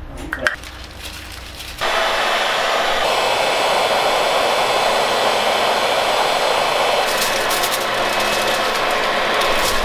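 A few light clicks and foil rustles, then about two seconds in a CNC router's spindle comes in suddenly with a loud, steady rushing whir as its V-bit carves into MDF.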